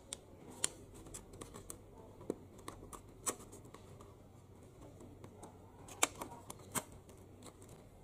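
Thin clear plastic food container clicking and crackling under the fingers as a piece of kuih lapis is pulled out of it: scattered sharp clicks, the loudest about six seconds in.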